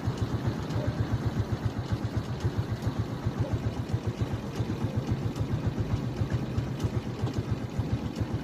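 An engine running steadily at idle, with a fast, even low throb.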